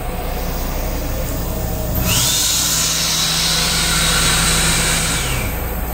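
Hand dryer built into the sink unit of a Metro-North M8 railcar restroom, starting about two seconds in and blowing for about three and a half seconds: a loud rush of air with a motor whine that rises in pitch as it spins up and falls as it stops. Under it runs the steady low rumble of the train.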